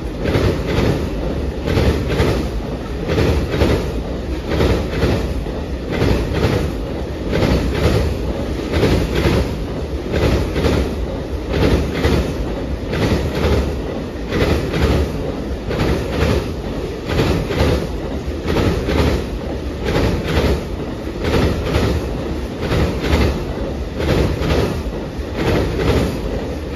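Amtrak Auto Train's enclosed auto-carrier cars rolling past at speed: a steady low rumble with the steel wheels clacking in a regular repeating rhythm over the rails.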